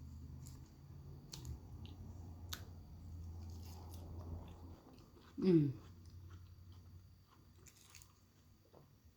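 Close-miked chewing of a mouthful of salad, with a few sharp crisp crunches, then a short, pleased hummed 'mm' with a falling pitch about five and a half seconds in, the loudest sound here.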